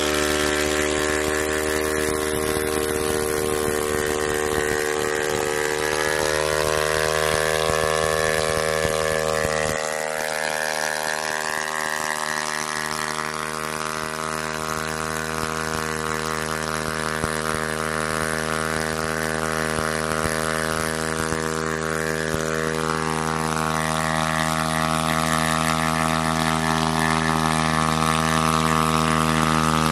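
Motorcycle engine running at a steady speed, driving a 3-inch self-priming centrifugal water pump, with the hiss and splash of the pumped water jet over it. The sound drops a little and shifts about ten seconds in.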